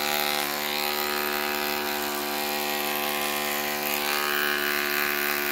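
Corded electric hair clippers running with a steady buzzing hum as they cut through a man's hair.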